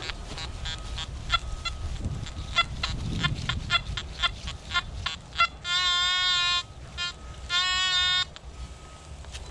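Nokta Anfibio metal detector sounding two loud, steady buzzy target tones, each just under a second long and about two seconds apart, signalling a target underfoot. Before them come several seconds of quick irregular clicks and ticks.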